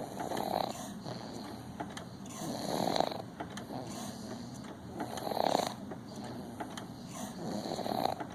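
A six-month-old snoring in its sleep: four snoring breaths about two and a half seconds apart, each swelling and then fading.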